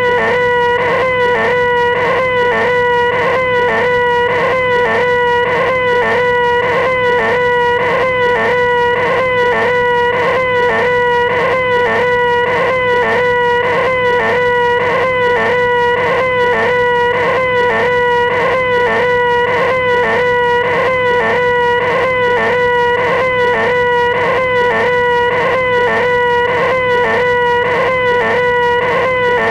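A man's voice holding a shrill, nasal 'eeehhh' wail at one unchanging pitch, with a quick, even pulsing and no break: the 'most annoying sound in the world' gag, repeated on and on.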